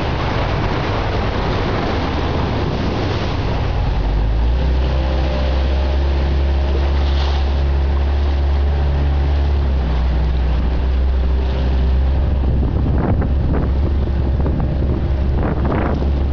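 Small motorboat's engine running steadily, a low drone with a faint hum, with wind buffeting the microphone and a few short gusts or splashes near the end.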